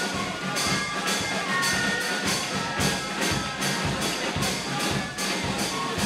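Music with a steady beat of about three strikes a second under a melody of held notes.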